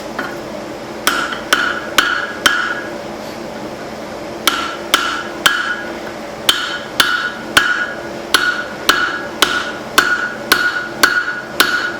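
Hand hammer striking spring steel over the anvil horn, each blow sharp with a short metallic ring. Four blows about two a second, a pause of about two seconds, then a longer run of about a dozen blows at the same pace.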